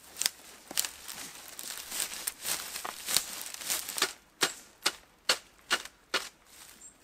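Dry reed thatch crackling and rustling as bundles are worked into the roof. About four seconds in it turns into a run of sharp, evenly spaced crackling strokes, about two a second.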